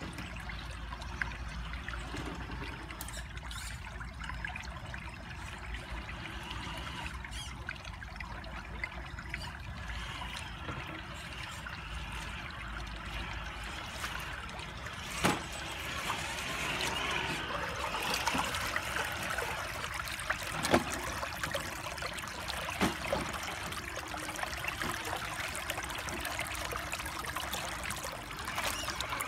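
Shallow rocky stream trickling and splashing, louder in the second half, with a few sharp knocks around the middle.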